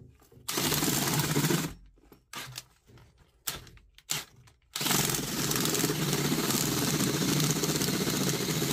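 DeWalt drill spinning a small 3-inch auger bit into dirt: a run of about a second, a few short knocks and stop-start bursts, then a long steady run from about five seconds in.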